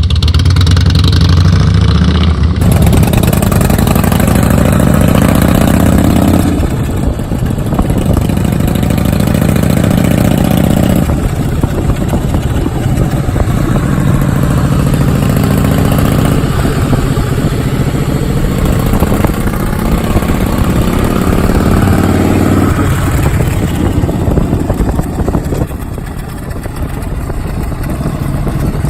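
Harley-Davidson V-twin motorcycle exhaust under acceleration, the engine note climbing in several long sweeps and dropping back between them, as through the gears.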